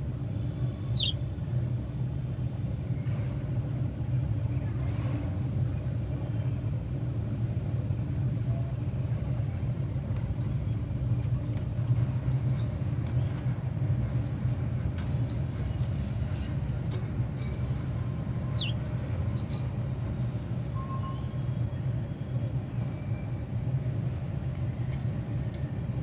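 Steady low background rumble, with two brief high falling bird chirps, one about a second in and one near the nineteenth second.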